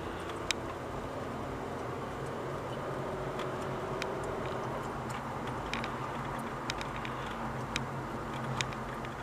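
Steady vehicle engine and road noise with a low hum, broken by about six sharp ticks at uneven intervals, the loudest about half a second in.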